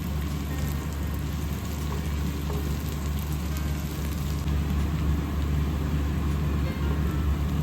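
Ginger-garlic paste sizzling and crackling in hot mustard oil in a pan, a steady rain-like sizzle over a low steady hum.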